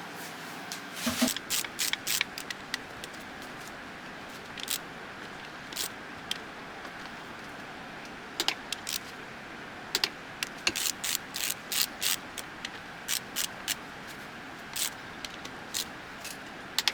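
Socket wrench working on the connecting-rod cap bolts of a Honda B18B bottom end: sharp metallic clicks coming in irregular clusters, with short pauses between.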